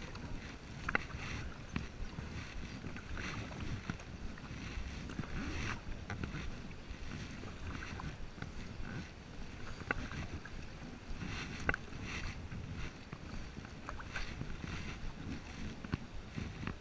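Double-bladed kayak paddle dipping into the water and splashing with each stroke, with a low rumble of wind on the microphone underneath.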